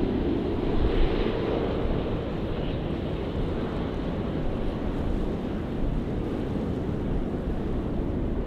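Jet airliner engines rumbling steadily, with wind buffeting the microphone.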